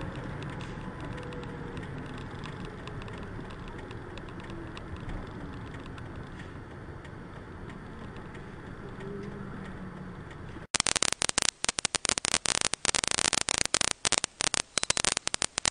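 Dashcam vehicle's cabin road and engine noise while driving in rain, with the engine note falling as it slows down. About ten seconds in it gives way suddenly to loud, irregular crackling and clicking.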